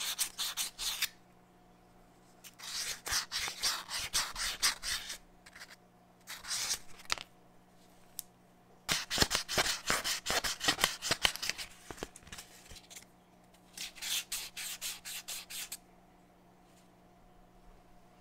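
Fine-grit sandpaper rubbed quickly back and forth by hand inside a small steel cup-shaped plug, polishing off surface rust. The strokes come in five short bouts with pauses between, then stop.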